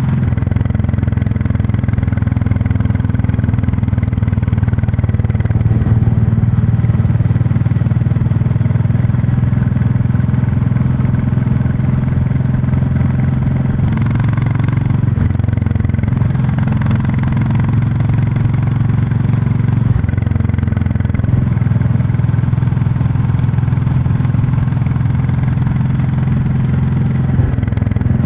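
Royal Enfield Classic 350's single-cylinder engine and exhaust running steadily under way. The engine note dips and picks up again a few times: about halfway through, around two-thirds of the way and near the end.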